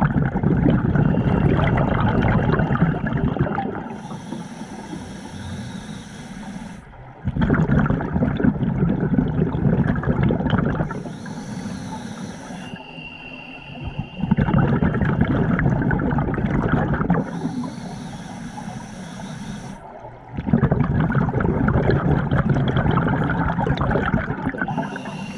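Scuba diver breathing through a regulator underwater: four long exhalations of rushing bubbles, each about three to four seconds, alternating with quieter hissing inhalations, roughly one breath every seven seconds.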